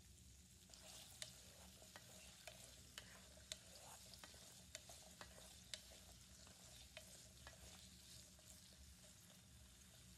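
Food sizzling faintly in a pan while being stirred, with a cooking utensil clicking and scraping against the pan at irregular intervals.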